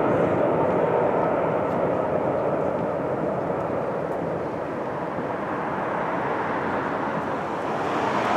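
Jet airliner engine noise: a steady rushing sound that eases off over the first few seconds and builds again near the end.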